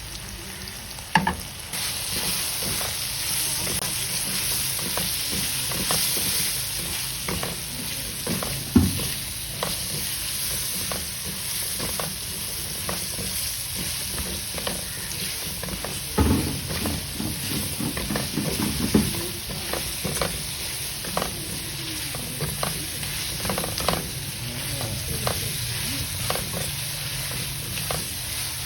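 Chicken and vegetables sizzling in a hot pan while being stirred, with a spatula scraping and clicking against the pan and a few heavier knocks. The sizzle jumps louder about two seconds in and then holds steady.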